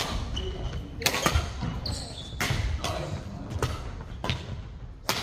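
Badminton rally: sharp racket strikes on the shuttlecock about once a second, with brief shoe squeaks on the court floor.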